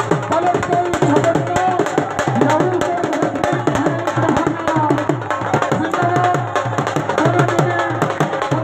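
Music with a quick, even beat of low hand-drum strokes that slide down in pitch, and a melody line over them.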